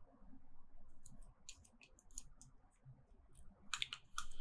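Faint, scattered small metal clicks and ticks of a small screwdriver turning the screw that holds a clarinet's register key, with a louder cluster of clicks near the end.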